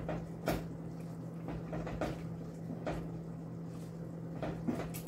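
Wooden spoon stirring thick soup in a stainless steel stockpot, knocking against the pot's side in a series of irregular soft knocks, over a steady low hum.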